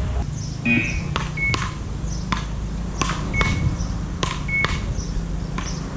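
Beach racket paddles striking the ball in a rally: about seven sharp hits, roughly one every half-second to second. Three short high beeps fall among the hits.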